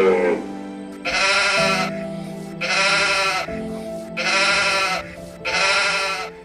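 An animal bleats four times, each bleat wavering and lasting under a second, over steady background music.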